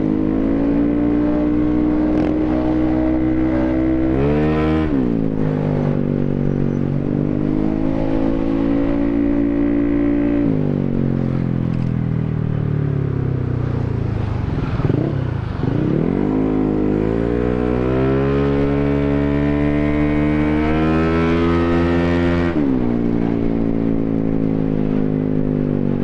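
Bored-up Yamaha X-Ride automatic scooter engine running through a Tekamoto Trioval aftermarket silencer under way: the note holds a steady pitch under throttle, then falls off sharply when the throttle closes, about four seconds in and again near the end. Midway it slides down to a low idle, then climbs back up as the scooter pulls away.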